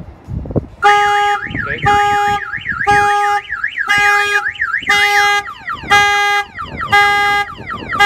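Excalibur 1660 aftermarket car alarm set off in panic mode on a GMC Sierra pickup. Its siren warbles up and down, then switches to rapid falling chirps about five seconds in. Over it a steady honking tone, most likely the truck's horn, pulses about once a second.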